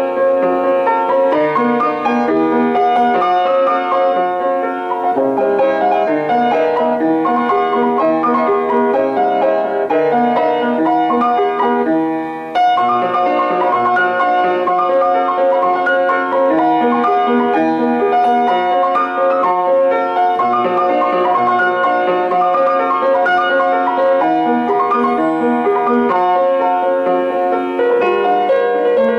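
Piano music playing a continuous melody, with a brief dip in loudness about twelve seconds in.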